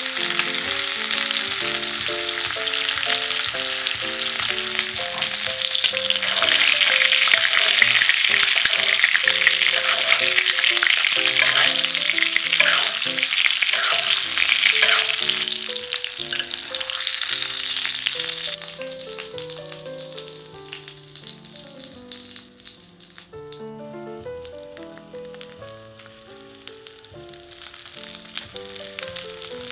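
A top blade steak sizzles loudly in butter and oil in a cast iron skillet as it is basted with a spoon. After about fifteen seconds the frying hiss drops away to a much quieter sizzle under light background music, then picks up slightly near the end as vegetables go into the hot fat.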